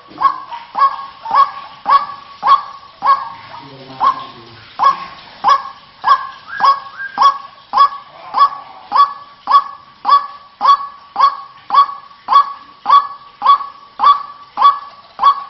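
White-breasted waterhen calling: a loud, short call note repeated just under twice a second, with a brief break about three seconds in. The call is the kind used as a lure to draw waterhens in rice fields.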